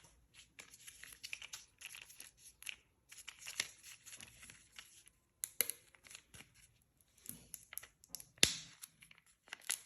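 Kinder Joy egg's foil wrapper being torn open and crinkled by hand, with a few sharp clicks, the loudest near the end.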